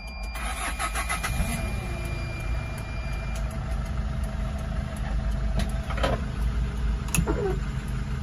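A 2004 Hyundai Porter II's four-cylinder common-rail diesel cranking on the starter, catching after about a second, then idling steadily. A steady high warning tone sounds over the first few seconds and stops, and there are a couple of clicks later on.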